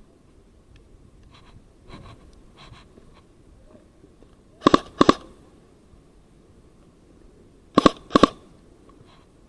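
Airsoft gun fired in two quick pairs of sharp shots, about four and a half and eight seconds in, each pair less than half a second apart. Faint rustling of gear comes before them.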